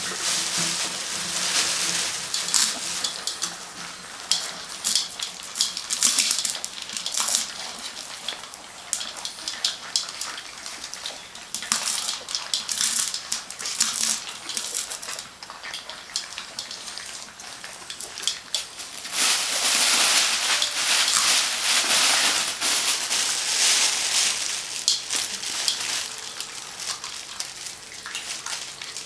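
Several puppies eating dry kibble from a stainless-steel feeding dish, with pellets and teeth clicking and rattling against the metal in a busy, uneven patter. It is densest for several seconds about two-thirds of the way through.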